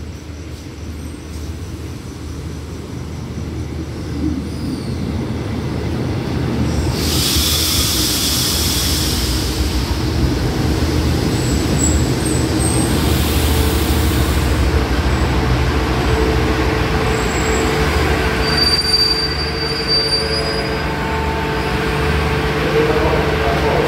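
Four-car passenger train pulling into the station and slowing to a stop. A low rumble builds over the first several seconds, a burst of hiss comes about seven seconds in, and thin high-pitched squeals from the wheels and brakes come later.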